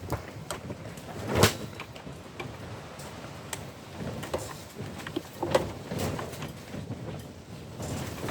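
Irregular clicks and knocks of parts and tools being handled on a workbench, with one louder knock about a second and a half in.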